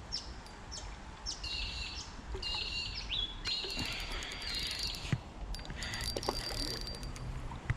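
Small birds chirping and twittering in quick runs of short, high calls, busiest from about one and a half to six seconds in, over a faint low rumble.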